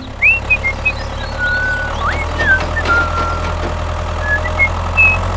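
A steady, engine-like drone runs throughout, with birds chirping over it in short rising and falling calls.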